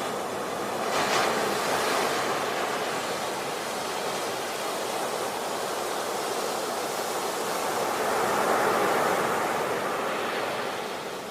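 Sea waves breaking on a shore: a wave crashes about a second in, the surf washes on, and a second wave swells and breaks around eight seconds in.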